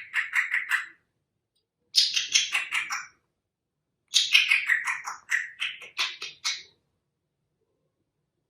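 African grey parrot making quick runs of rapid clicking, chattering notes, each run falling in pitch. One run ends about a second in, another follows around two seconds in, and a longer one lasts from about four seconds to nearly seven.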